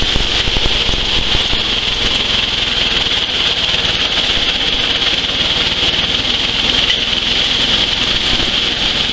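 Dry coffee huller running steadily while it hulls a hopper-load of dried coffee. The sound is a continuous, even mechanical whirring with a constant hiss over a low hum.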